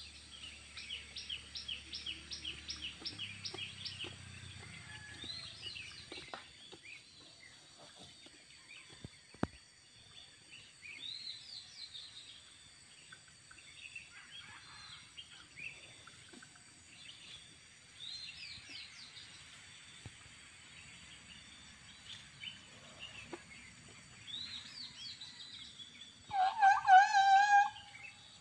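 Birds chirping with quick rising calls throughout. Near the end comes a loud, wavering, high squeak with overtones, lasting about a second and a half: an Asian elephant's squeak.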